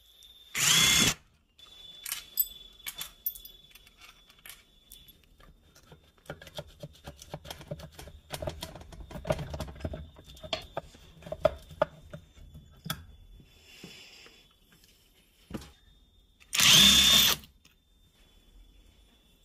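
A power tool run in two short bursts, about a second in and again near the end, loosening fasteners on a motorcycle cylinder head. Between the bursts, metal tools and parts clink and rattle.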